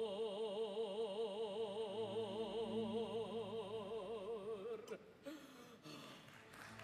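Operatic mezzo-soprano holding a long high note with a wide, slow vibrato, the closing note of her aria, over a low sustained orchestral note; the voice stops about five seconds in.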